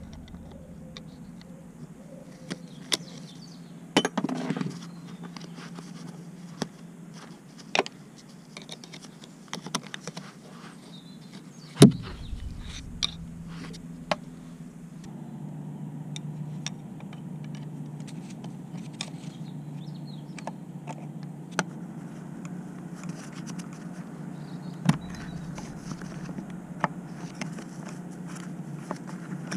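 Hand tools clinking and tapping on the metal of a car gearbox: irregular sharp metallic clicks and knocks, the loudest about twelve seconds in, over a steady low hum.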